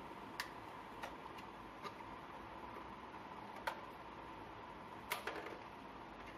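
Handling of a plastic extension board and its plug: several short, sharp plastic clicks and knocks scattered over faint room noise, the sharpest a little past the middle.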